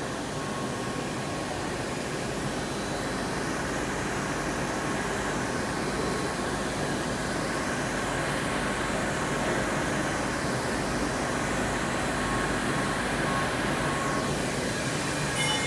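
Morara EMATIC 3000 CNC grinding machine running: a steady mechanical hum and hiss with several steady tones, and slow sweeping changes in the higher whine. There is a short click with a brief higher tone near the end.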